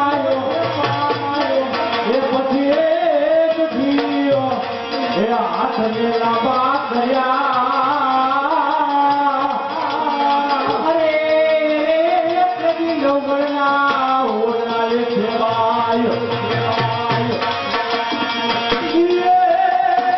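A man singing a wavering, ornamented melody through a stage microphone, with tabla accompaniment.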